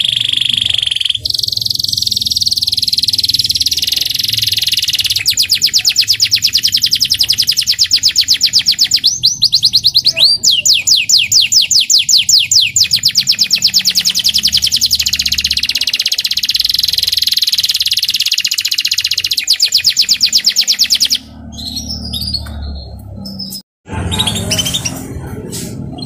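Young local canary singing a long, loud song of fast repeated trills, with runs of rapid high notes. The song breaks off about 21 seconds in.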